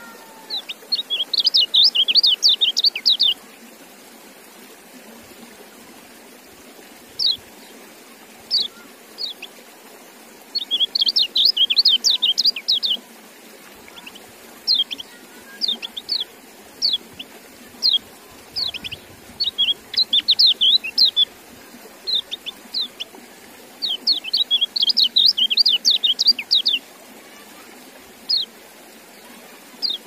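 White-eye (kecial) song: four bursts of rapid, high twittering notes, each two to three seconds long, with single high chirps scattered between them.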